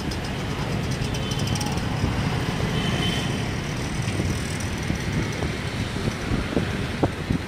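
Steady rumble of vehicle traffic crossing a bridge, with a few sharp knocks near the end.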